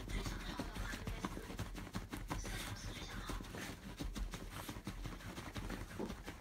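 A poodle digging and nosing at a cotton bedsheet and pillow, the fabric rustling and scratching in quick, irregular strokes.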